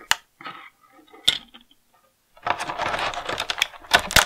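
Two sharp plastic clicks, then from about halfway a dense crackling of a clear plastic blister tray being flexed as small action-figure accessories are pried out of it, with a few sharper snaps near the end.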